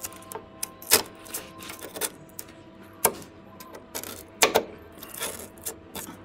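Irregular sharp clicks and knocks, a dozen or so, with the loudest about a second in, at three seconds and about four and a half seconds in, over a faint steady hum.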